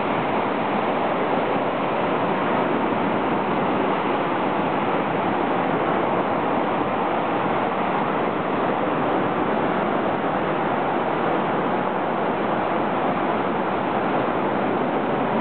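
Rough surf breaking on a sandy beach in strong wind, making a steady, even rush of noise.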